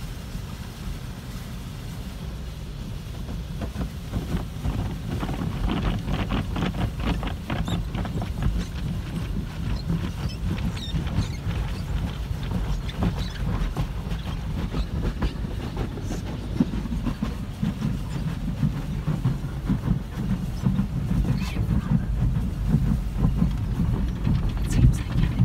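Automatic soft-touch car wash heard from inside the car cabin: water spraying and the cloth brushes slapping and rubbing against the body and glass over a steady low rumble. It grows louder about four seconds in, with a fast rattling slap for several seconds after that.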